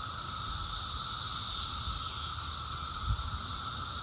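Brood X periodical cicadas in a massed chorus: a steady, continuous droning hiss that swells slightly about two seconds in. A brief low thump sounds about three seconds in.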